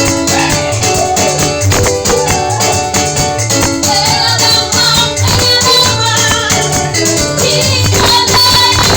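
Upbeat gospel praise music: a shaker keeps a steady rhythm over a repeating bass line and guitar, with wavering melody lines coming in about halfway through.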